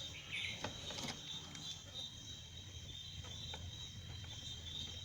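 Quiet hand work: a few faint clicks and rustles in the first two seconds as the knotted motor wires are untied, over a steady high chirring of crickets.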